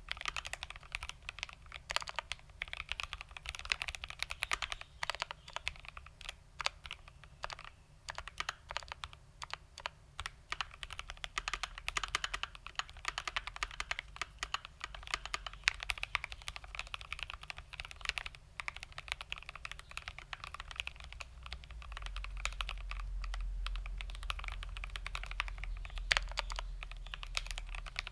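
Typing on a GMMK Pro mechanical keyboard with a polycarbonate plate, linear Tangerine switches (lubed with 205g0, 105 springs) and Cherry OG ABS doubleshot keycaps. Keys are struck in a steady, fast run of overlapping clicks and clacks.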